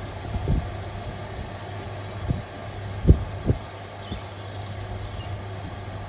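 Steady low electrical hum with several short dull knocks, the loudest about three seconds in.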